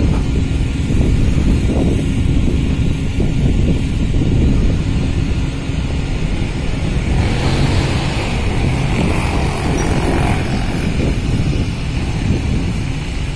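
Steady low rumble of a berthing car ferry's engines, with wind buffeting the microphone. A rushing hiss swells about seven seconds in and fades about three seconds later.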